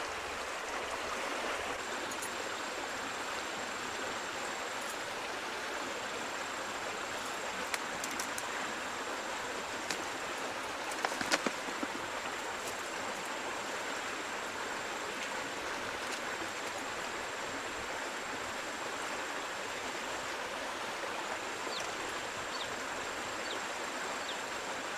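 Shallow rocky stream running over small cascades: a steady rush of water, with a few brief knocks a little before the middle and a faint high steady tone that comes and goes.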